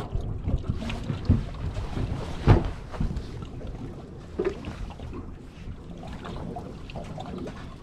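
Scattered knocks and thumps from a small fishing boat, with wind buffeting the microphone; the loudest knock comes about two and a half seconds in, and the second half is quieter.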